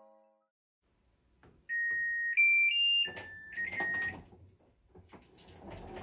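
Hitachi BW-V90F top-loading washing machine playing its electronic start melody: a short tune of about five beeps that steps up in pitch and then back down. Faint clicking and a low rumble follow as the machine starts turning the drum to weigh the laundry.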